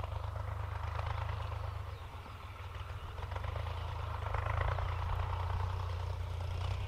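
The diesel engine of a CHAMP YTO 454 tractor, about 45 horsepower, running steadily under load as it pulls a disc plough through the field. It is a steady, deep, low drone with a rough clattering noise over it.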